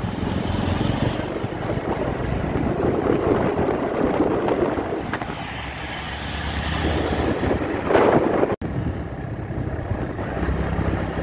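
Motorcycle engine running at cruising speed on the road, with wind rushing over the microphone. A brief louder rush about eight seconds in, then the sound cuts out for a moment.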